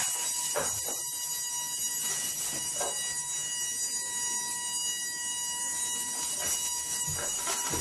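Hexapod-robot CNC router running during a raster cutting pass: a steady high whine made of several even tones over a hiss.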